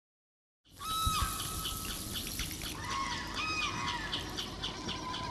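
A flock of birds calling, with many quick overlapping chirps and arched call notes over a steady outdoor hiss, starting suddenly about a second in.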